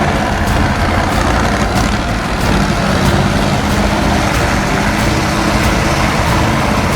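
Truck engine running steadily under load.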